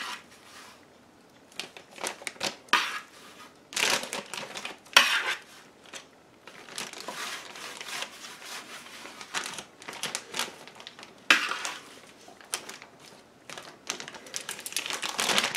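Metal tongs clicking and scraping on a metal sheet pan and a plastic zip-top bag crinkling, in irregular bursts, as raw seasoned chicken thighs are picked up and dropped into the bag one at a time.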